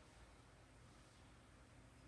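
Near silence: faint room tone with a low hum and hiss.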